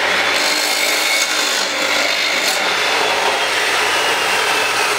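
Abrasive chop saw running and cutting through steel square tubing, a loud grinding hiss with a high motor whine that slowly drops in pitch.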